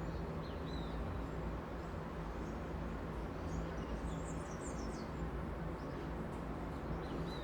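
Steady city traffic rumble with a low drone underneath, and small birds chirping over it. A cluster of quick high chirps comes about four to five seconds in.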